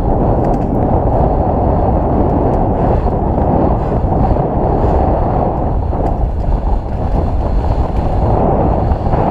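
Steady wind rush over the camera microphone and rumble from a mountain bike riding fast down a wet dirt trail, with faint scattered clicks and rattles.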